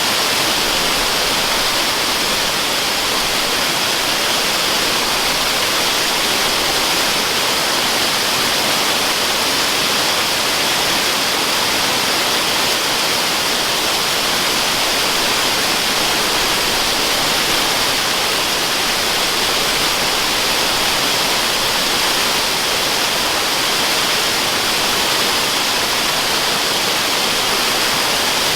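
Waterfall rushing, a steady, even hiss that never changes, used as white noise.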